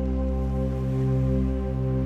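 Background music: soft, sustained ambient synth chords with slowly changing low notes.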